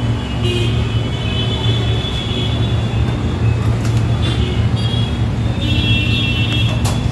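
Steady low hum of kitchen machinery, with a few short clinks as a metal pizza peel is set down on a stainless-steel counter.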